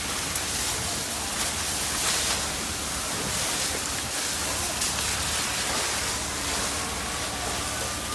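Fire hose water spray: a steady rushing hiss with a few faint clicks.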